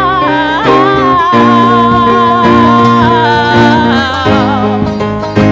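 Live song performance: a woman holds a long sung note with vibrato, then a second held note, over guitar accompaniment.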